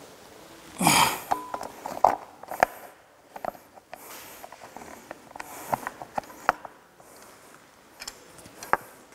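Scattered metallic clicks and knocks of hand tools and engine parts being handled as a front cover is fitted to a bare engine block, with a louder rustling scrape about a second in.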